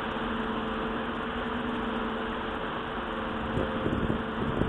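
Boat engine running with a steady drone over a constant hiss, with a few low, uneven bumps near the end.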